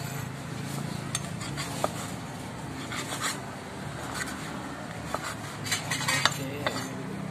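Steel cleaver cutting grilled pork on a wooden chopping block: scattered sharp knocks, with a quick run of them near the end, over a steady low hum.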